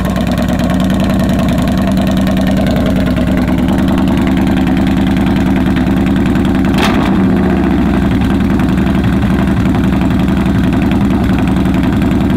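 Yamaha Bolt R-Spec's air-cooled V-twin idling, very loud through dual exhaust pipes with the baffles removed, so loud it clips the recording. There is one sharp crack about seven seconds in.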